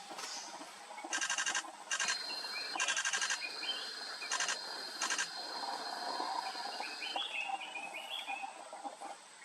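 Forest birds calling, with several short bursts of rapid chattering notes and scattered chirps. A steady high tone holds for several seconds in the middle.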